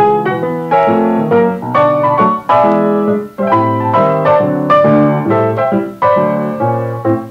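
Easy-listening solo piano music: chords and melody notes struck about every half second, each ringing and fading before the next.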